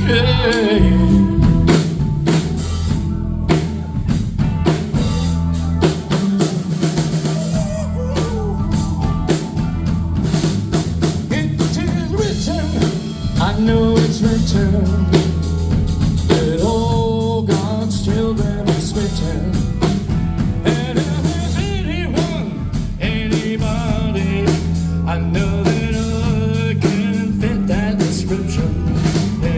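Band music: a drum kit keeps up a steady beat under bass, other instruments and a singing voice.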